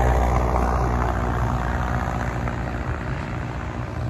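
Small propeller airplane flying very low past, its engine drone fading steadily as it moves away.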